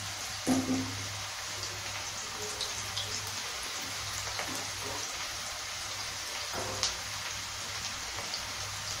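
Sliced onions and chopped garlic sizzling steadily in hot oil in a wok, with a wooden spatula knocking against the pan a few times as they are stirred, the loudest knock about half a second in.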